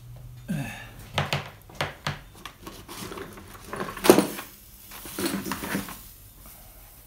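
A run of knocks and clacks as stained glass panels and tools are picked up and set down on a wooden workbench, the loudest about four seconds in.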